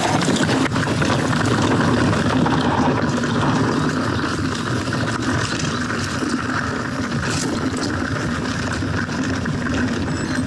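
Mountain bike riding down a dirt and rock singletrack: a steady rush of knobby tyres rolling over the ground, mixed with wind noise on the action camera's microphone.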